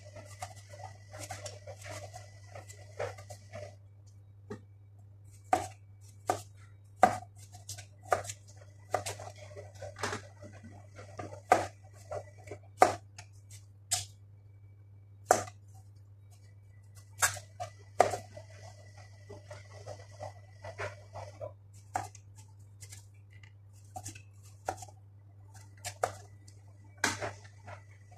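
Kitchen knife cutting peeled potatoes on a plastic cutting board: sharp, irregular knocks of the blade on the board about once a second, with softer scraping between them. A steady low hum runs underneath.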